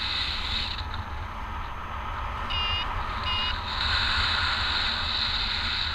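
Steady wind rush on the microphone of a camera carried in paragliding flight, with two short warbling beeps a little before halfway.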